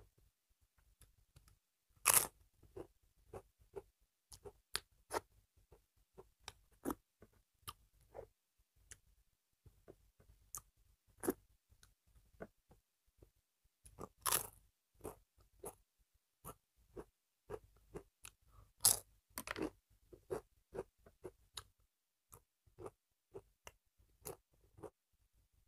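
Crisp papad being bitten and chewed close to the microphone: a string of sharp crunches, the loudest about two seconds in, near the middle and about three-quarters through, with softer chewing crunches between.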